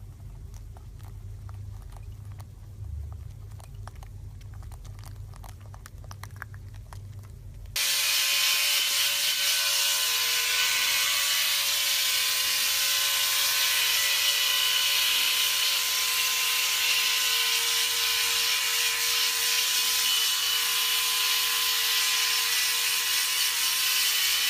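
Handheld hair dryer running steadily, a loud rush of air with a steady motor whine; it starts abruptly about eight seconds in. Before that there is only a low hum with faint clicks.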